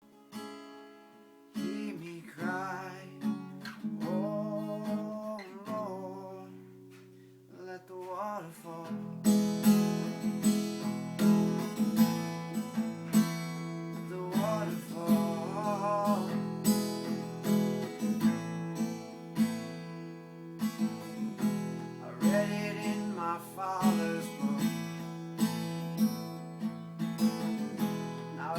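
Acoustic guitar song with a singing voice. It starts with a few sparse notes and sung phrases, then settles into steady strumming about nine seconds in, with the voice singing over it.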